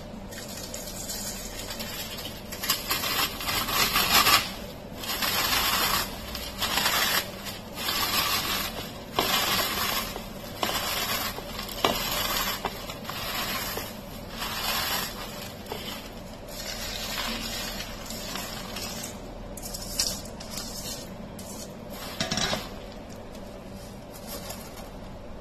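Crisp fried besan sev being crushed by hand on a stainless steel plate: dry crackling in repeated bursts, about one a second, as the strands break into short pieces.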